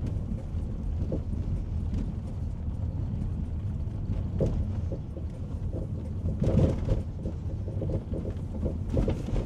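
Road noise inside a moving car: a steady low rumble with scattered knocks and bumps.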